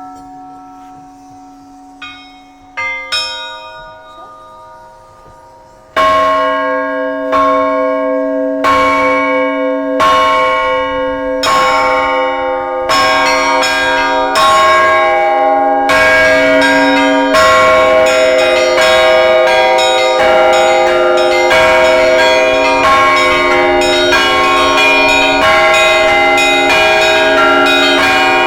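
Russian Orthodox church bells rung by hand. A few light strikes on small bells over a fading hum give way, about six seconds in, to the big bell striking about every second and a half. From about thirteen seconds the smaller bells join in a fast, dense peal.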